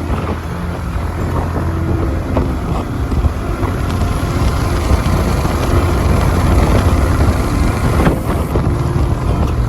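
Motorcycle riding, with the single-cylinder engine of a Yamaha R15 V4 running steadily under way. Wind rushes on the microphone, and scattered knocks come through from the rough track.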